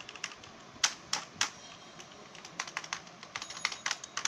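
Keys of a TVS Gold mechanical keyboard being pressed, with sharp clicks. Three separate strong keystrokes come about a second in, then a quick irregular run of typing near the end.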